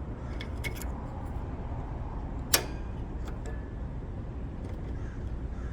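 Steady low hum of a running air conditioner condenser unit during refrigerant charging. A few light ticks come about half a second in, and one sharp click comes about two and a half seconds in.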